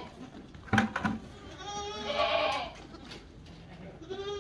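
Goats bleating: one long wavering bleat in the middle and another starting near the end. Two sharp knocks about a second in are the loudest sound.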